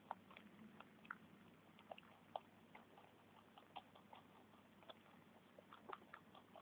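Two pet rabbits munching broccoli from a bowl: faint, quick, irregular crunches, several a second.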